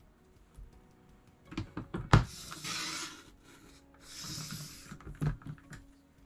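Paper trimmer's sliding blade cutting across a sheet of patterned paper, a papery hiss heard twice. Clicks and taps of the paper and cutter head being set in place come before the first hiss, the loudest a sharp click about two seconds in.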